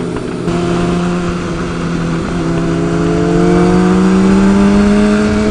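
Honda CBR600RR inline-four engine pulling under throttle, its pitch rising slowly and steadily as the bike accelerates, over a rush of wind noise.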